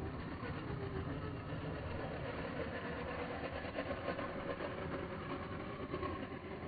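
Brushed electric motor and geartrain of a 1/10-scale MN999 RC off-road truck running, a steady whine that drifts slightly in pitch with the throttle.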